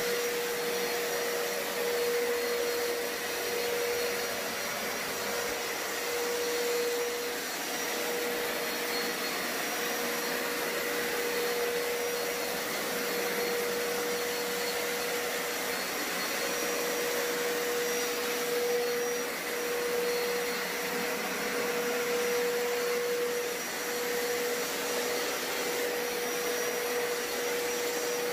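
Hoover Power Scrub Deluxe carpet cleaner running steadily with its hard-floor scrubber tool, its motor giving a constant whine over a wide, even rush of air.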